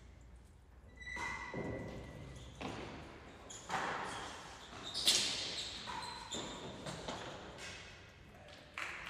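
A real tennis rally: a series of sharp, echoing strikes of the hard ball, racket hits and bounces off the court's surfaces, about seven over the stretch, the loudest about five seconds in.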